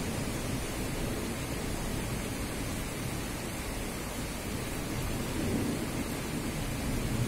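Rain falling steadily in a thunderstorm, an even hiss, with a low rumble of thunder swelling a little past the middle.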